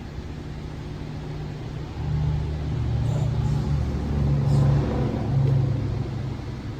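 A car engine running with a low, steady hum that grows louder about two seconds in.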